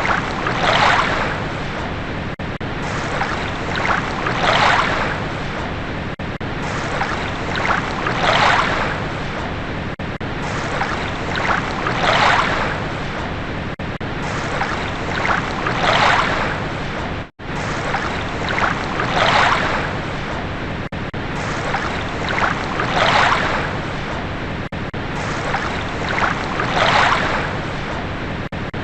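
Ocean waves washing onto a shore, a steady rush of surf that swells roughly every four seconds. The sound cuts out for an instant about seventeen seconds in.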